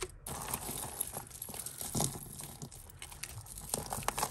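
Tangled costume jewellery being handled: bead necklaces, glass beads, faux pearls and chains rustling and clicking against each other in a continuous run of many small, sharp clicks.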